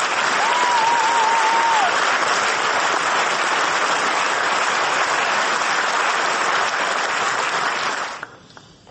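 Audience applauding steadily, with one wavering whoop from the crowd in the first two seconds; the applause cuts off suddenly near the end.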